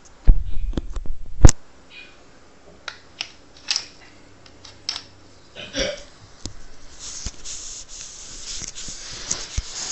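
Handling of a WE M14 EBR gas-blowback airsoft rifle and its scope: a thump at the start and a sharp click about a second and a half in, then scattered small clicks and knocks, and rubbing in the last few seconds.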